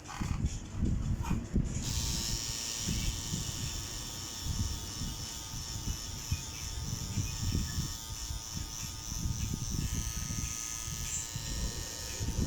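A small electric motor buzzing steadily, switching on about two seconds in, with irregular low handling noises underneath.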